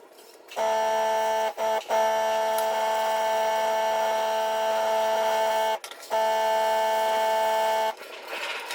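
Small electric air compressor for an airbrush, humming steadily. It kicks in about half a second in, cuts out briefly twice, and stops near the end, leaving a soft hiss of air.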